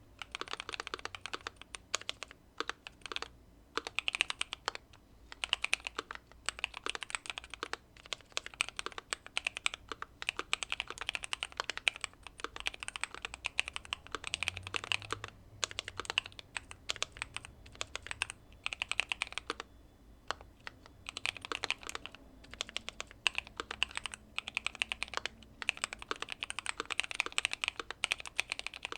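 Typing on a Keychron Q2 aluminium mechanical keyboard with factory-lubed Pearl Lemon switches, tape mod and case foam: fast keystrokes in runs of a few seconds, broken by brief pauses.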